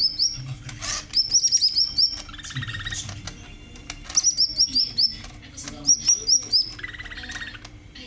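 Caged green leafbird (cucak hijau) singing: rapid runs of short, high, down-slurred chirps in bursts every second or two, alternating with lower buzzy trills.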